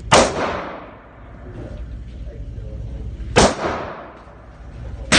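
Three gunshots at a shooting range, each a sudden bang with an echo fading over about half a second: one right at the start, one about three and a half seconds in, one at the very end.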